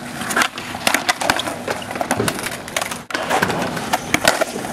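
Skateboard wheels rolling on asphalt with several sharp wooden clacks of the tail popping and the board slapping down as flatground flip tricks are tried.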